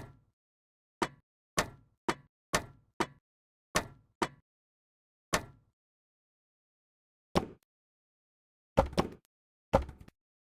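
A series of sharp knocks with dead silence between them, about a dozen at uneven spacing, the last few coming as quick double knocks.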